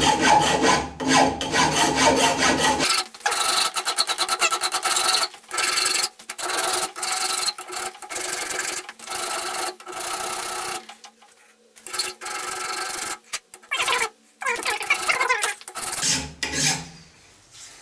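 Flat hand file scraping back and forth over fresh TIG welds on a steel part clamped in a bench vise, in a long run of strokes with a short pause about eleven seconds in. It is the welds being dressed down by hand.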